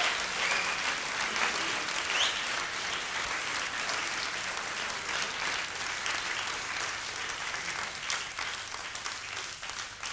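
Studio audience applauding, with a few brief pitched cheers in the first couple of seconds, dying down near the end.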